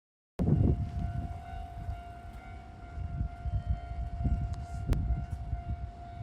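Japanese railway level crossing alarm at a station crossing, a single electronic warning tone sounding steadily, with a low rumbling noise underneath.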